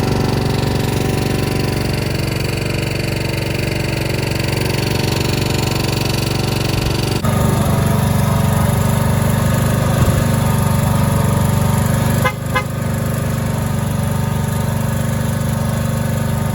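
A vehicle engine running steadily after being jump-started; its tone changes abruptly about seven seconds in.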